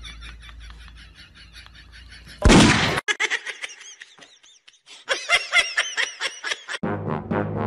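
A single loud, gunshot-like bang about two and a half seconds in, then high-pitched giggling laughter. Music with brass begins near the end.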